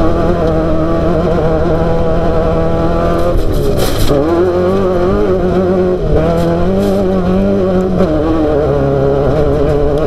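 A Class 12 desert race buggy's engine running hard, its pitch wavering with the throttle. About three and a half seconds in it drops off briefly with a few knocks, then picks back up.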